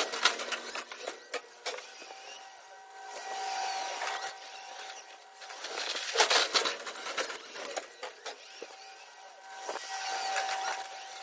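Forklift at work: its warning alarm beeps rapidly, about six times a second, in spells of one to two seconds. These alternate with the steady whine of its drive motor. Two loud clunks come, one at the start and one about six seconds in.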